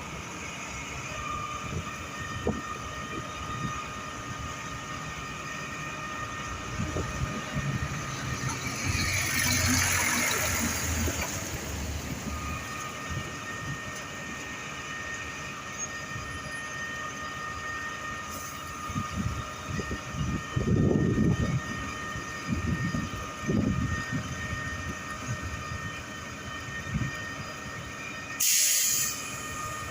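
Truck-mounted concrete pump working: machinery running steadily with a high whine, a long hiss about ten seconds in, a few low thumps, and a short loud hiss near the end.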